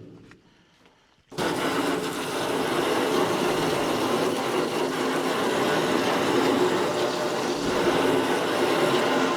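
A motor-driven shop tool runs loud and steady for about eight seconds. It starts abruptly about a second in and cuts off at the very end.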